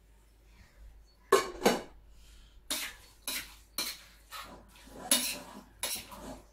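Metal utensil clinking and knocking against a cooking pot. There are about eight sharp strikes, beginning about a second in and coming every half second to second.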